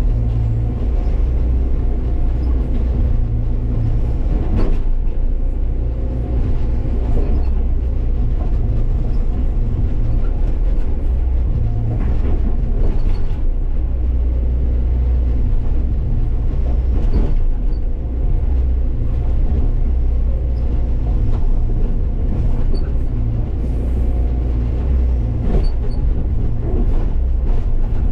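Hyundai excavator's diesel engine running steadily under load, heard from the operator's cab as the bucket works rocks. A few short knocks of stone and steel break in at times.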